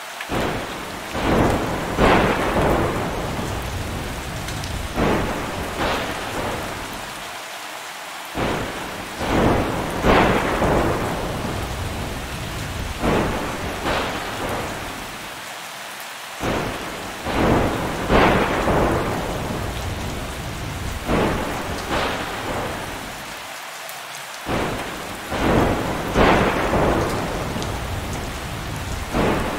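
Thunderstorm: steady heavy rain with repeated thunder claps that each roll away, two to four per cycle. The same sequence repeats about every eight seconds.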